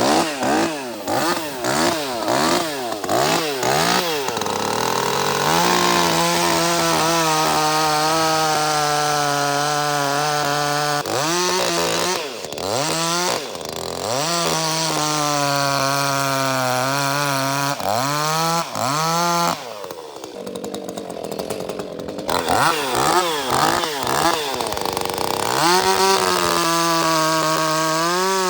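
Ported Echo CS-310 two-stroke chainsaw, blipped up and down a few times and then held at full throttle in long, steady stretches while bucking a log. Between cuts it drops briefly to idle and revs up again.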